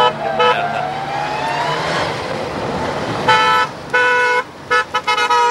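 A car's engine rises in pitch as it comes up a gravel road. In the second half comes a string of short, loud horn toots on one steady note, the last one held for about half a second.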